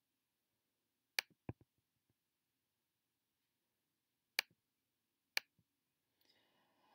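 Four sharp, isolated clicks from working a computer to switch between photos, spaced a second or more apart with near silence between them. The second click is followed closely by a softer, duller knock.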